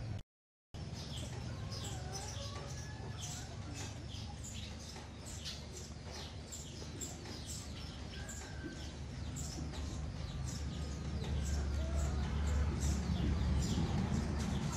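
Small birds chirping, many short quick calls one after another, over a low steady rumble that grows louder near the end. The sound cuts out completely for about half a second just after the start.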